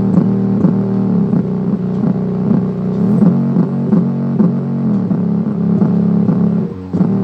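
Music played through the Intex IT-890U Mini 2.1's 3-inch subwoofer alone, giving a loud, muddy bass line with almost no deep low end. The bass is distorting a lot, a sign of the small woofer being overdriven. The sound drops out briefly near the end, then resumes.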